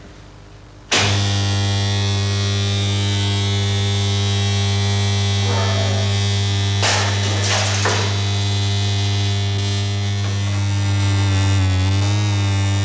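The coils of Laithwaite's magnetic river, a linear induction motor track, are switched on about a second in and give a loud, steady, deep electrical hum with many overtones. Two brief noises come over it about seven seconds in.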